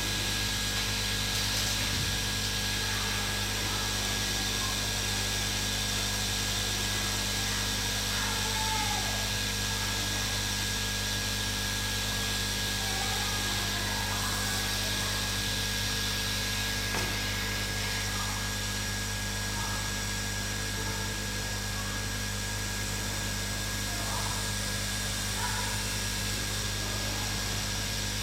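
Hot-air rework station blowing steadily while underfill glue is scraped off an iPhone circuit board, with a constant hiss and hum and faint scraping now and then.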